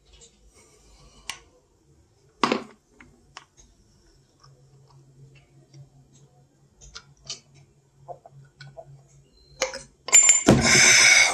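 A shot glass of vodka dropped into a glass mug of beer with a sharp clink about two and a half seconds in, then quiet gulping as the beer bomb is chugged, ending in a loud burp near the end.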